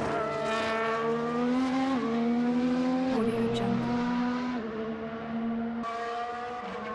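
Formula 1 engine running under test, its high-pitched note climbing as it accelerates. The pitch drops sharply twice, about two and three seconds in, as it shifts up, then holds a steadier note that eases off slightly near the end.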